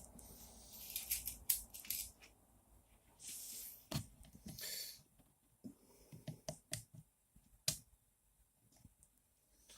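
Small hardware and acrylic parts being handled: scattered light clicks and ticks with short rustling scrapes, busiest in the first half.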